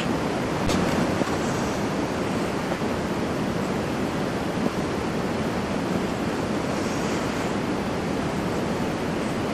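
Steady rushing noise with no clear pitch or rhythm, with a faint click about a second in.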